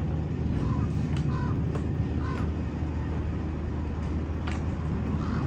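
Steady low background rumble, with a few faint light clicks of metal chair bolts being handled and started by hand.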